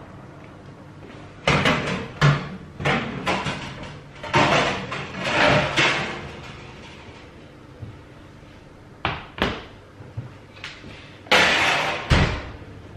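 Kitchen clatter as a hot oven dish is taken out of an oven: a run of knocks and clunks from the oven door, shelf and dish set down on the counter, with the loudest bang near the end as the oven door is pushed shut.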